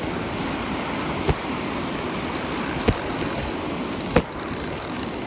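Steady noise of surf and wind on the microphone, broken by three sharp knocks about a second and a half apart from handling of the spinning reel and rod close to the phone.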